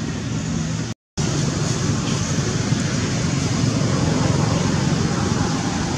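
Steady outdoor background noise, a low rumble with hiss over it, broken by a short gap of complete silence about a second in.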